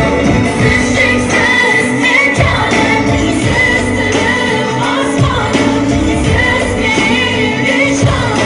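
A woman singing an Uzbek pop song over amplified band accompaniment with a steady beat.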